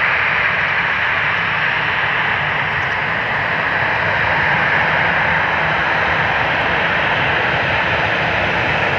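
Boeing 737-800 jet's CFM56-7B turbofan engines running steadily at taxi power as the airliner taxis onto the runway before takeoff.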